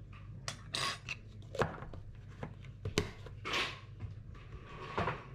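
Kitchen handling sounds while seasoning raw chicken wings with sugar and seasoning powder: scattered light knocks and clicks, with two short rustling bursts, about a second in and again past the three-second mark.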